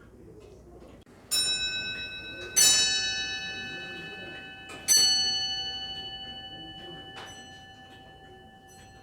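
Grandfather clocks striking on their bells or gongs: four strokes, each ringing on and slowly fading, the second and third close together. Faint ticking of the clocks lies underneath.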